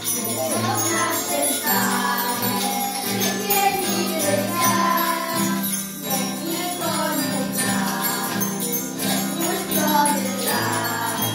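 A group of children singing a song together to strummed acoustic guitar, with small jingle bells shaken along in time.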